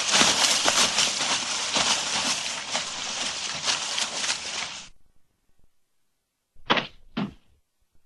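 Sound-effect recording of a human body fall. A long tumbling, scraping fall full of small knocks stops about five seconds in. Near the end come two short thuds about half a second apart.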